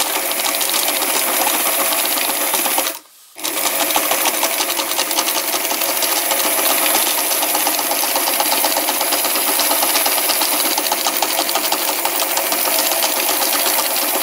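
Sewing machine running at a steady speed, the needle stitching through layered paper pages down the middle fold. It stops briefly about three seconds in, then runs on.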